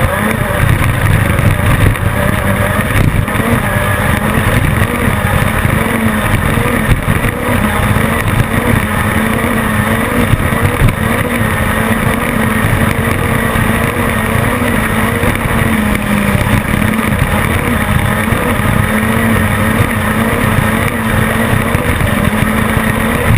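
Class 10 off-road race car's engine running hard at high, nearly steady revs, the pitch wavering only slightly, over a constant uneven low rumble.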